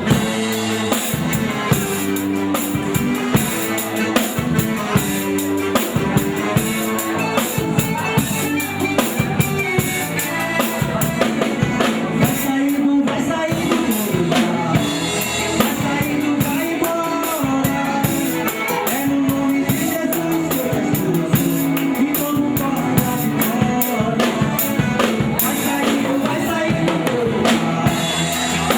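A live band plays an instrumental passage: a drum kit keeps a steady beat under electric guitar, bass and keyboard.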